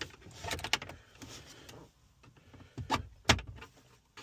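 Plastic dash trim around the radio of a 2012 Jeep Compass being pried loose, with scattered clicks and creaks and a few sharp snaps about three seconds in.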